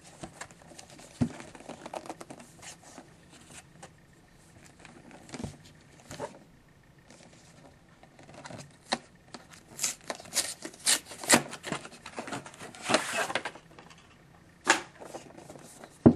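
Trading-card tin being worked free of its packaging by hand: scattered tearing and crinkling with sharp clicks and knocks, busiest about ten to thirteen seconds in.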